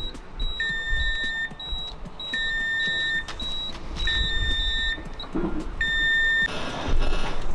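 Electronic beeping from an Anritsu MA517 metal detector: short high beeps repeating about twice a second, with a longer, lower beep sounding four times, each lasting about a second. A low rumble runs underneath, and a brief rush of noise comes near the end.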